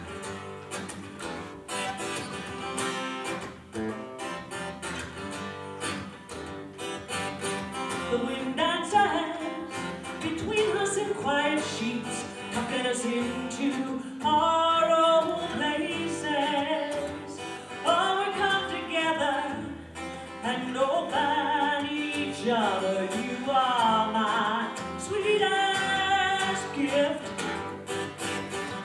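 A woman singing to her own strummed acoustic guitar. The guitar plays alone at first, and the voice comes in after about eight seconds.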